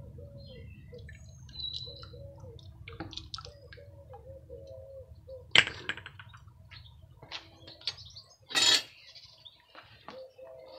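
Bucket of quench water bubbling and dripping around a freshly cast aluminium ingot held in steel tongs, then a sharp clack about halfway as the ingot and tongs come down on concrete, and a short louder clatter later on.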